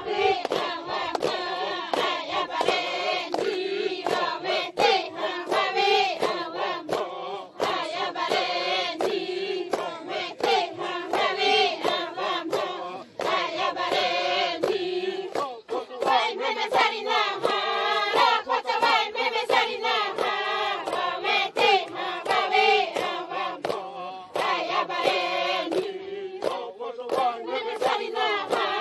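Group of Xavante women singing together in a pre-game song: many voices in a rising and falling chant, with a steady beat of sharp taps running through it.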